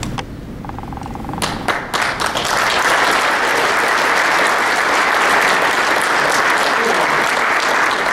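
Audience applauding: a few scattered claps about a second and a half in, building into steady applause.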